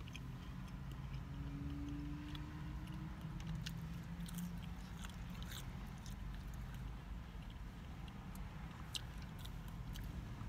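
Close-up chewing of French fries and a fried fish sandwich, with many short, scattered wet mouth clicks over a steady low hum, and a bite into the sandwich near the end.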